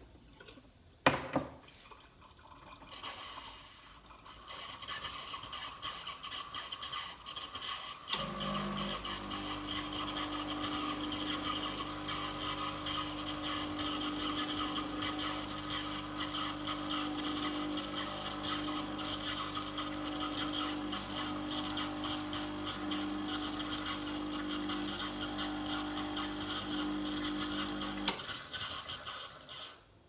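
Lelit espresso machine's vibratory pump running with a steady hum while water rushes and hisses through it, pushing the descaling solution into the boiler. The water hiss starts a few seconds in. The pump kicks in about eight seconds in and cuts off sharply near the end.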